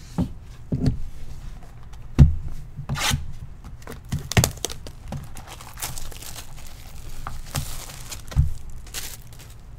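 Plastic shrink wrap being torn and crinkled off a sealed cardboard trading card box, with several knocks of the box on the table, the loudest about two seconds in.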